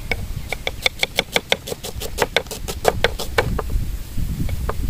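Kitchen knife chopping shallots on a small wooden cutting board: a fast, even run of knocks, about seven a second, that breaks off after three and a half seconds, followed by a few single chops near the end.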